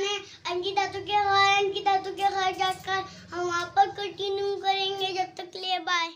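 A young boy singing in a high voice, holding long steady notes, breaking off suddenly at the end.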